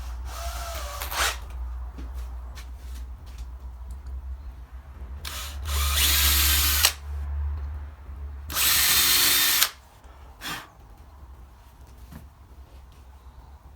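Electric drill with a 3mm bit boring two pilot holes for hinge screws in a cabinet door: two short runs of about a second and a half and a second, about five and eight and a half seconds in, with briefer spins of the drill before and after.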